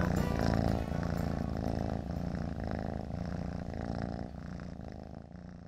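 Domestic cat purring steadily, fading out gradually toward the end.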